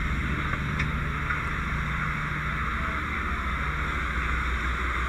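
Fire engine running steadily at the scene: a constant low engine drone with a steady hiss over it, as when the truck's pump is supplying the hose lines.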